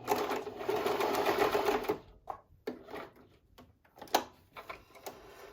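Singer sewing machine running for about two seconds, back-stitching at the end of a seam, then stopping. A few light clicks follow.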